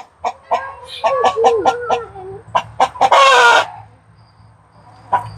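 Agitated chickens clucking in a rapid run of short calls, then one loud, harsh squawk about three seconds in.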